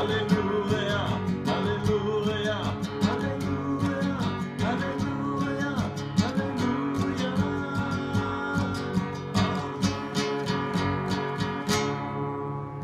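Acoustic guitar strummed steadily, with a voice singing along without clear words. The strumming stops about a second before the end.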